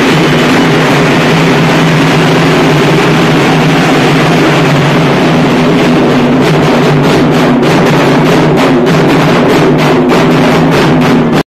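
Dhak, the large Bengali barrel drums, beaten with sticks in a fast, dense beat, very loud. The separate strokes stand out more clearly from about six seconds in, and the drumming cuts off abruptly near the end.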